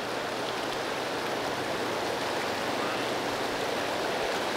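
Fast, rocky mountain river rushing steadily over stones.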